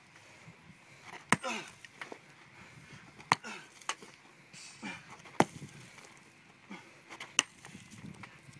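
A sledgehammer strikes rocks on gravel ground four times, about two seconds apart. Each blow is a sharp crack.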